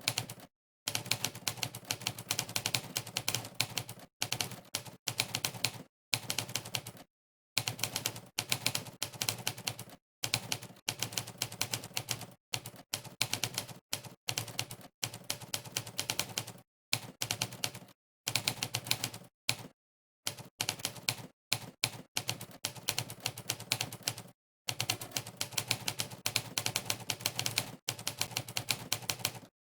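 Monkeytype's simulated typewriter keypress sound, one sharp key clack per keystroke in fast runs of clacks lasting a second or a few seconds, separated by brief dead-silent gaps.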